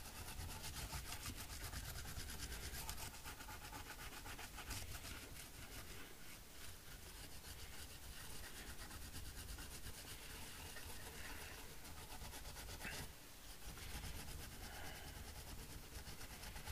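A brush scrubbing the solder side of a circuit board wet with isopropyl alcohol to clean off flux: a faint, continuous, rapid scratchy rubbing, with a short break about 13 seconds in.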